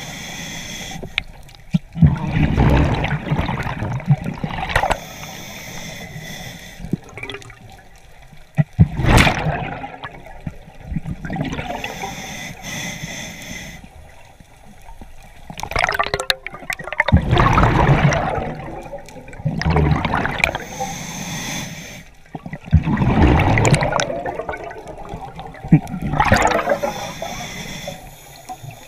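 Scuba regulator breathing underwater: repeated gurgling rushes of exhaust bubbles, one with each exhaled breath, with quieter pauses between breaths.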